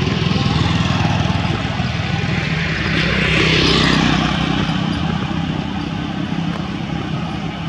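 Road traffic noise: a steady engine hum, with a vehicle passing close that swells to a peak about three to four seconds in and then fades.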